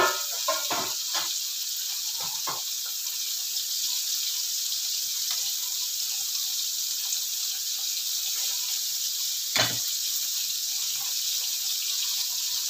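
Red snapper head frying in hot oil in a wok, a steady sizzling hiss. There are a few crackles in the first couple of seconds and a single sharp crack about ten seconds in.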